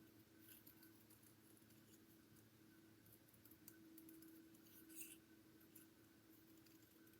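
Near silence: a few faint snips and clicks of small paper pieces being cut with scissors and handled, over a faint steady hum.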